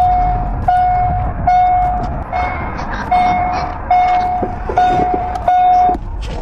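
A single steady pitched tone sounding in a series of about eight on-off beeps of uneven length, over steady low background noise; the beeping stops shortly before the end.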